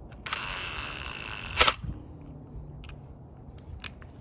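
A DeWalt brushless cordless drill/driver spins briefly with a thin whine as it works a screw through a bit extender, ending in a single sharp crack. There are a few faint ticks afterwards, and another sharp crack near the end.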